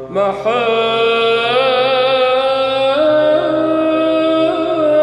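Byzantine chant in Arabic: a solo male cantor sings a long wordless melisma over a steady held drone (ison). The voice enters just after the start with an ornamented rise and steps up to a higher held note about three seconds in.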